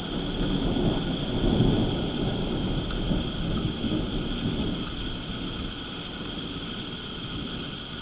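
Thunder rumbling, loudest about a second and a half in and rolling away over the next few seconds.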